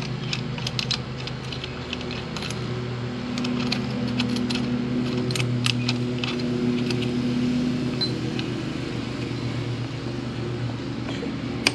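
Light metallic clicks and clinks of a hex key and a steel bracket being handled as a bolt is screwed back into a motorcycle's front brake caliper mount, over a steady low hum.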